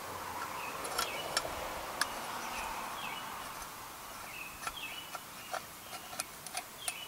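Quiet outdoor ambience with faint, scattered bird chirps and light metallic ticks and clicks as a thin exhaust gasket and flange are handled against a mower muffler.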